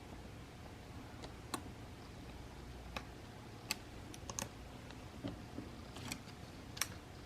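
Faint, irregular sharp clicks and taps, about seven in all, of small repair tools and tiny phone parts being handled on a bench during iPhone 6 Plus reassembly.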